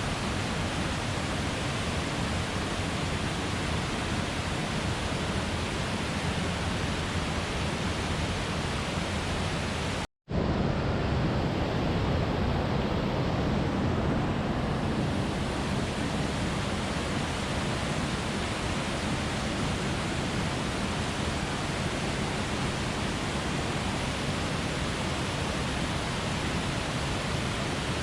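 Steady rush of a waterfall, a constant roar of falling water. It drops out abruptly for a split second about ten seconds in, then comes back slightly louder.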